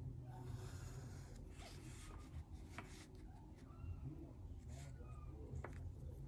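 Graphite pencil drawing lines on paper along a straight edge: several short, faint strokes with a few light clicks as the pencil and straight edge are set down and moved, over a steady low hum.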